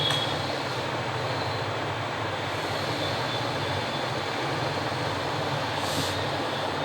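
Steady rushing background noise, even and unbroken, with a faint click about six seconds in.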